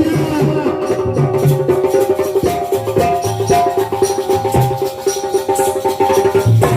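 Indian folk music with fast hand-drum strokes over steady held melodic tones.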